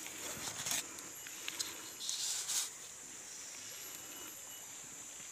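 Tropical forest ambience: a steady high-pitched insect drone, with short scuffing noises about half a second in and again around two seconds in.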